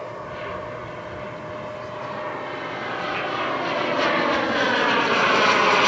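KingTech K-260 turbine of a giant radio-controlled F-86 Sabre jet model whining in flight, growing steadily louder as it closes in.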